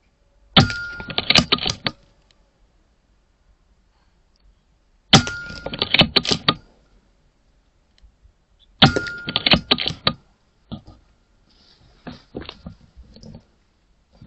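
Three shots from a .22 air rifle, about four seconds apart. Each opens with a sharp crack and is followed by a rapid run of clicks and knocks lasting over a second. Fainter scattered clicks come near the end.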